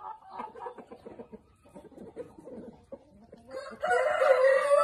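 Chickens clucking briefly, then a rooster starts one long, loud crow about three and a half seconds in.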